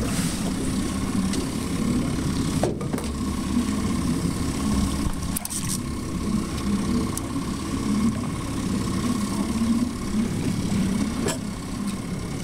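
Motorboat engine running steadily, with a constant low drone and a thin steady whine above it.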